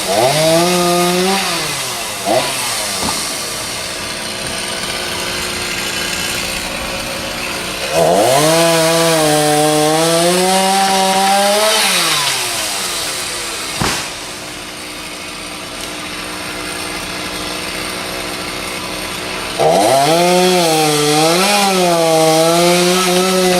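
Chainsaw revving up to full throttle in three long runs, its pitch rising and sagging as it cuts, and dropping back to a lower, steadier running sound in between. A single sharp click comes about two-thirds of the way through.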